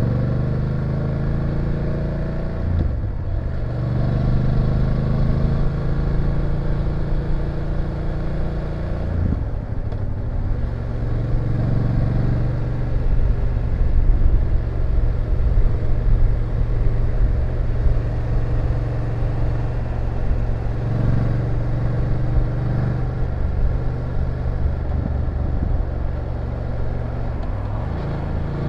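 BMW F850GS parallel-twin engine running under way, with wind and road noise. The engine note falls over the first few seconds and breaks off briefly about three and nine seconds in, then holds a steady cruising pitch.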